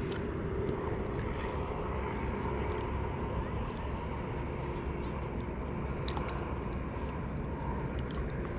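Steady low rumble and hiss with faint humming tones, and a few light clicks about six seconds in.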